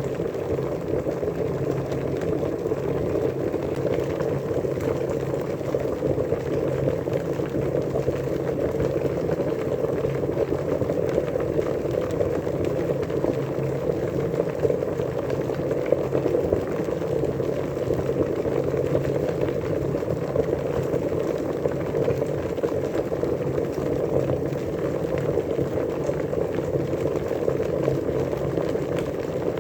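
Water at a full rolling boil: a steady, dense bubbling and seething that holds even throughout.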